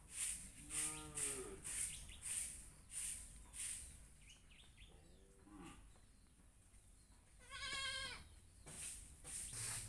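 Goat bleating three times: two lower calls and then a higher, quavering one near the end.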